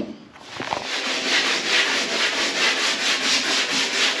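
Hand sanding of a fibreglass repair on a boat hull: sandpaper rubbing in quick, even back-and-forth strokes, fairing the cured layup smooth before the next layer goes on. It starts about half a second in, after a short knock.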